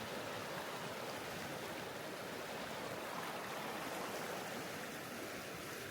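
Steady, even rushing of water, with no single event standing out.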